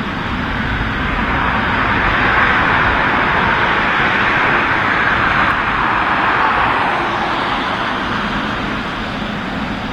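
Boeing 777 freighter's GE90 turbofans as it passes on arrival, a steady jet roar that builds for the first few seconds and then slowly fades.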